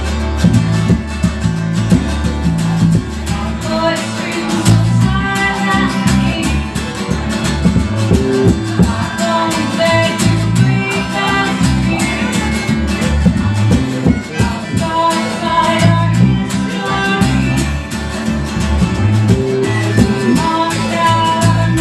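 Live band music, played loud: strummed acoustic guitar and harmonica over a steady rhythm, with some singing.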